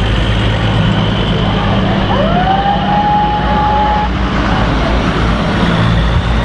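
Trucks and a pickup driving past close by, their engines running as a steady low drone under road noise. A little past two seconds in, a single whistle-like tone rises and then holds for about two seconds.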